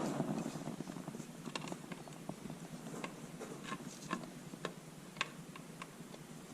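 Scattered light clicks and taps of metal tools and parts being handled, about half a dozen spread apart, over low rustling.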